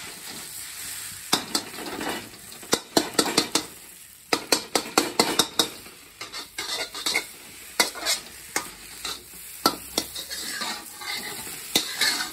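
Metal spatula stir-frying egg noodles in a metal kadai (wok), with many quick scrapes and clinks of metal on metal, in irregular clusters over a steady sizzle.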